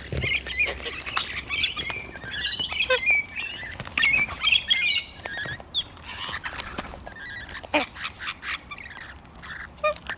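Wild parrots squawking and chattering in a busy, overlapping flock, with sharp clicks and taps scattered among the calls.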